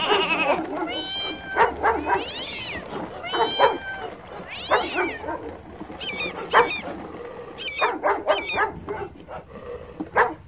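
Battery-operated toy dogs barking: a string of short recorded yaps and longer cries, several of them rising and then falling in pitch.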